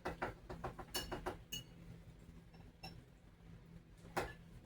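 Cutlery and dishes clinking during a meal: a quick run of light clinks in the first second and a half, then a few scattered ones, the loudest a little before the end.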